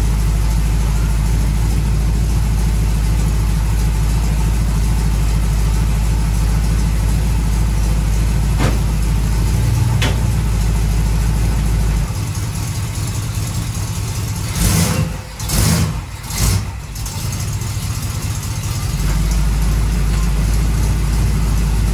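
A 1936 Chevy coupe's small-block Chevy V8 idling steadily, then revved in three quick blips as the car is driven further up onto the ramps, before settling back to idle.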